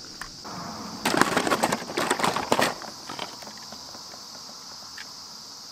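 Toy vehicles being handled on gravel, a burst of clattering and crunching about a second in that lasts under two seconds.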